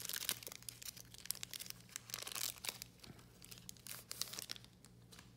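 Foil wrapper of a Panini Select baseball card pack crinkling and tearing as it is ripped open, in three crackly bursts with short pauses between.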